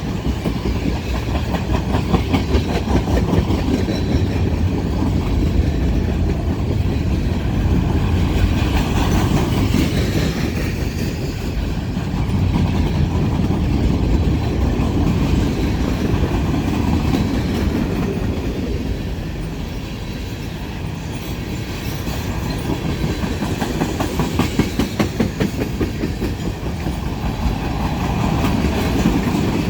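Freight train rolling past: a steady rumble of railcars with wheels clicking rapidly over the rail joints.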